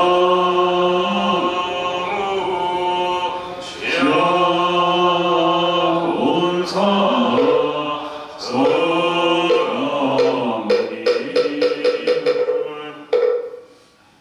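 Slow chanted singing with long held notes, in the manner of Buddhist chant music. Near the end a quick run of taps sounds, and then the music fades out about a second before the end.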